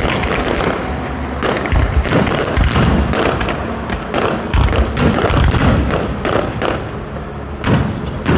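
Fireworks going off in quick succession: a dense run of bangs and crackles, with deep booms several times.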